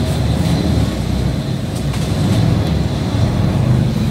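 City bus engine running close by with a steady low rumble, with road traffic behind it.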